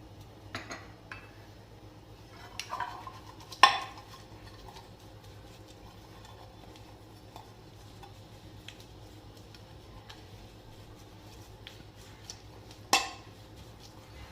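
Steel kitchen utensils clinking and knocking as a metal steaming mould is greased with oil: scattered light taps, with a sharp clank about three and a half seconds in and another near the end.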